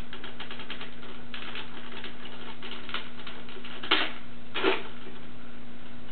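Plastic parts of a Power Rangers R.P.M. Megazord toy clicking and rattling as it is handled and repositioned by hand, with two louder clacks about four seconds in.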